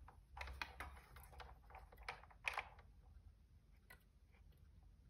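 Faint small clicks and rustles of a speaker wire and its tinned end being handled and pressed against a loudspeaker's solder terminal, a handful of them mostly in the first three seconds.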